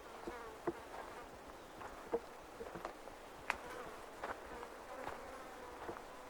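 A flying insect buzzing close by, its hum coming and going, over light, irregular footsteps on a forest trail.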